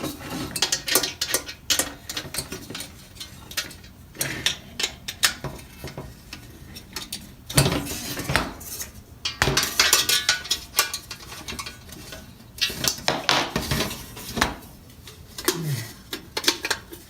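Steel plates and brass fittings of an armet helmet clinking and clicking irregularly as its moving parts are worked, the visor and push-pin lock being opened and closed.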